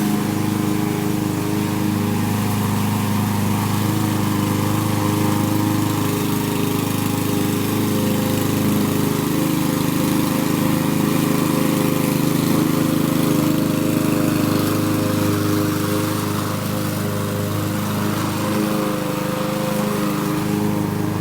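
Power lawn mower running steadily at a constant speed while cutting grass, then cutting off abruptly at the very end.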